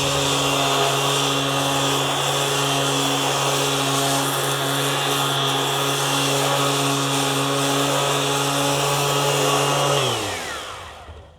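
Ryobi cordless sander motor running steadily at a constant speed, then switched off about ten seconds in and spinning down with a falling pitch.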